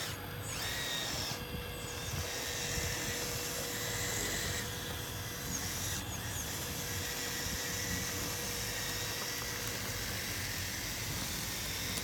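Remote-control scale hydraulic excavator's electric pump motor whining as the arm digs and the machine swings and raises its bucket, the whine shifting in pitch and strength several times as the controls change the load.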